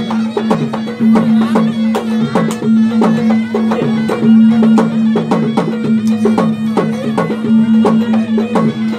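Traditional Bugis-Makassar gendang drums played in rapid strokes, each dropping in pitch, over a continuous droning reed-like wind instrument.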